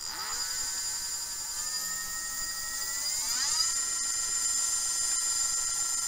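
500-watt brushless scooter hub motor driven by a 48 V controller, whining as the throttle is tested. Its pitch rises about three seconds in as the wheel speeds up, then holds steady, with a high steady tone above it.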